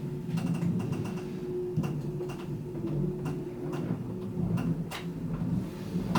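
A steady low hum with a few light clicks and knocks scattered through it.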